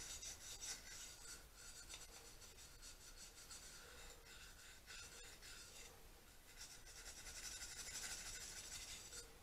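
Brass wire brush scrubbing a metal carburettor inlet plate in quick, faint scratching strokes, a little louder near the end. The brush is rubbing off leftover gasket sealant.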